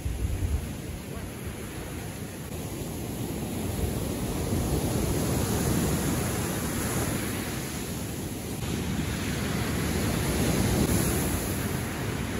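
Ocean surf breaking on a sandy beach: a steady wash of noise that swells about four seconds in and again near the end, with wind rumbling on the microphone at the start.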